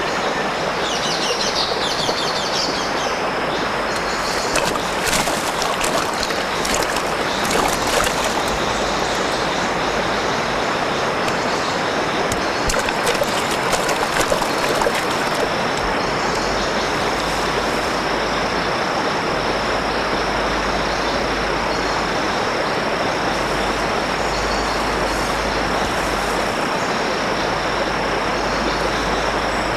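Steady rush of a rocky jungle stream, with a constant high insect drone and a few bird chirps near the start. Scattered splashes of someone wading come through in the first half.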